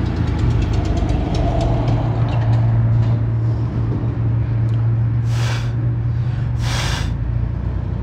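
Trigger spray bottle squirting soapy water onto a freshly plugged tire to check the plug for leaks: two short hissing sprays a little over a second apart, midway through, over a steady low hum.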